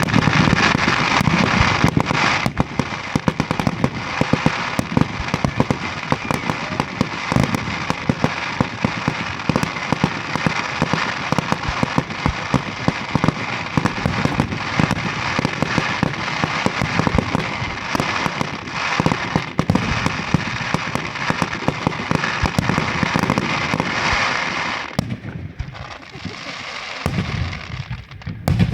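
Fireworks going off in a dense, continuous crackle of many rapid pops and bangs, thinning out near the end.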